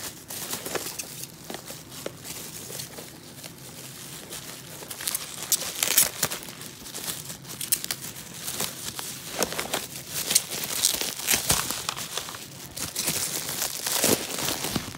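Bubble wrap and tissue paper crinkling and rustling as a packed item is unwrapped by hand, in irregular crackles with louder bursts about halfway through and near the end.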